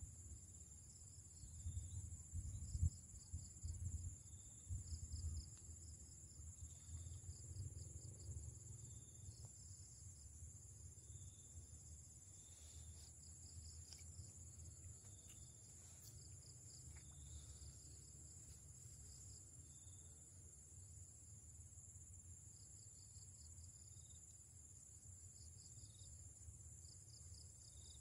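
Faint chorus of insects: cricket-like pulsed chirping that repeats in short trains, over a steady high-pitched insect drone. A low rumble sits under it for the first several seconds, then dies away.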